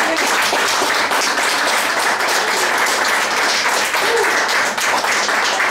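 Audience applauding steadily, with a brief call from the crowd about four seconds in.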